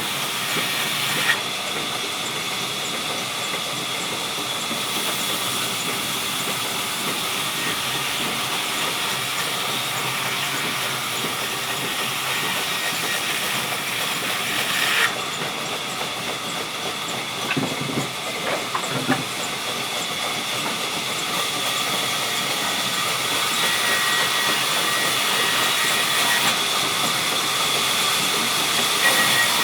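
Sawmill saw cutting through a log: a steady hissing noise with a high whine, changing abruptly about 15 seconds in, with a few knocks around 18 seconds in.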